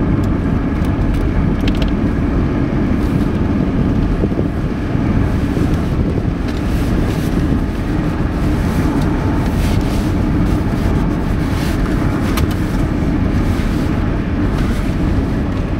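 Steady low-pitched noise with a few faint clicks.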